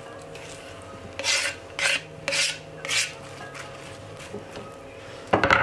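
Knife blade scraping chopped onion, tomato and sweet pepper across a wooden chopping board: four short rasping strokes about half a second apart, then a louder scrape near the end.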